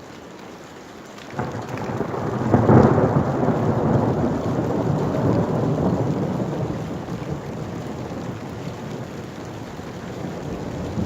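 Steady rain, then a thunderclap about a second and a half in, peaking a second later and rolling on as a long low rumble that slowly fades.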